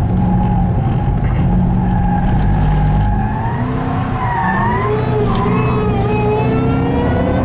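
Ford Shelby GT500's V8 heard from inside the cabin, running at a steady note, dipping and swinging in pitch about four seconds in, then climbing steadily as the car accelerates along the track.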